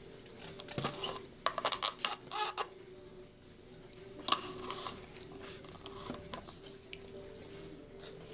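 Handling noises from a takeout meal in a styrofoam clamshell box and plastic sauce cup: a cluster of sharp clicks and rustles about a second or two in, and another click in the middle, over a faint steady hum.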